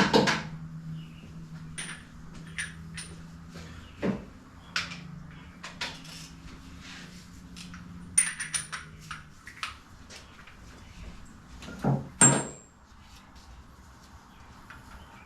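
Metal hand tools and engine parts being picked up and set down on a workbench: scattered clanks and clicks, some with a brief metallic ring, the loudest at the start and near the end. Under them is a low steady hum that stops about nine seconds in.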